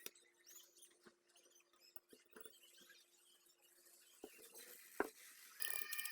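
Faint scattered clicks and light scratching of small hand work. Rattly background music comes in near the end.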